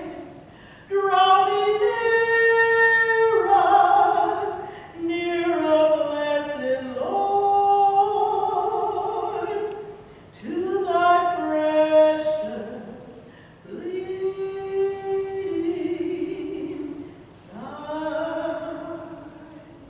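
A woman singing solo and unaccompanied: slow, held notes in phrases a few seconds long, with short pauses for breath between them.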